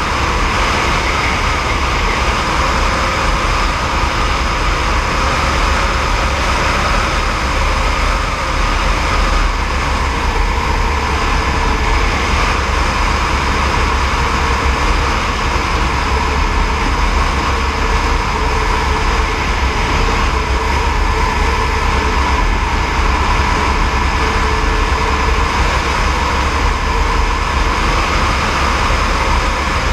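Airbus AS350 B3e helicopter with its Arriel 2D turboshaft and rotor running steadily in flight: a loud, continuous noise with deep rumble and a few held tones, unchanging throughout.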